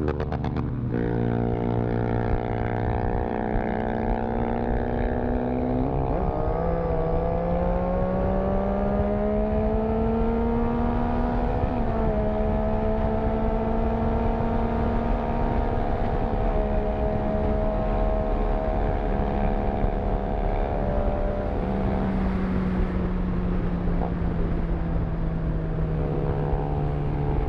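Triumph Street Triple 675's three-cylinder engine running under way. Its pitch drops about a second in, climbs steadily for several seconds, holds, then eases down near the end, with wind rushing over the microphone.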